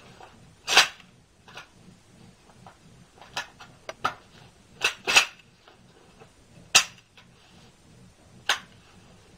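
About ten sharp clicks and clacks at irregular spacing, with a quick pair about five seconds in; the loudest come about a second in and near seven seconds.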